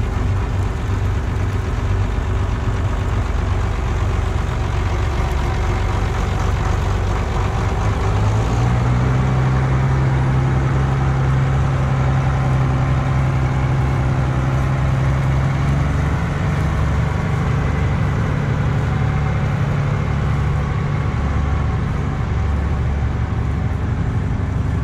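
Large Schlüter four-wheel-drive tractor's diesel engine running steadily; about eight seconds in, the engine speed rises and holds at the higher note as the tractor moves off.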